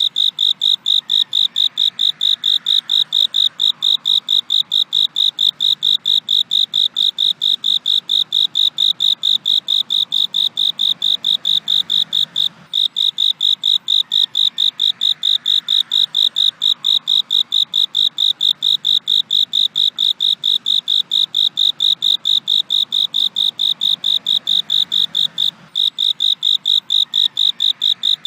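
Cricket chirping steadily, a single high pitch in an even run of about four chirps a second, with a very brief break about every thirteen seconds where the recording loops.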